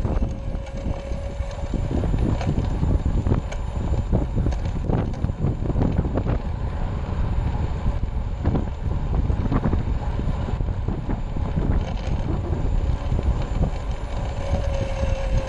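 Wind rumbling on the microphone of a moving bicycle, with the faint steady whine of a friction-drive SK3 5065 electric motor under VESC control pushing the bike along, and scattered light ticks from the road.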